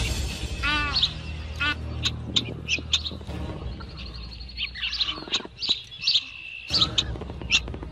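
Birds chirping and calling: quick high chirps, a couple of short rippling trills, and a held whistle-like note twice in the second half.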